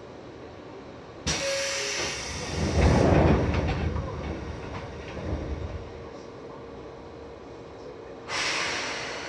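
Seibu 2000 series electric train releasing compressed air: a sudden loud hiss about a second in, a heavy low rumble that swells and fades, then a second sudden hiss near the end that dies away.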